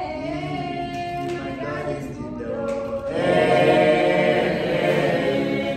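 Choir of voices singing a cappella in held, sustained chords, swelling louder about halfway through.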